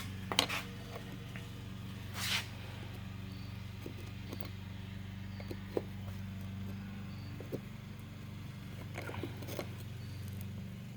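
Steady drone of a lawnmower engine running in the background, with a few light clicks and knocks scattered through it.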